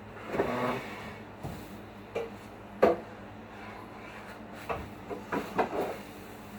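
A few knocks and clatters of hard objects being handled and set down, with a short scraping rustle near the start; the loudest is a sharp knock about three seconds in, followed by a quick cluster of smaller knocks near the end.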